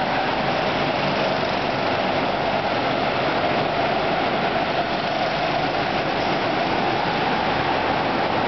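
Hire go-kart engines running together on the track as a steady, loud drone whose main note wavers slightly in pitch.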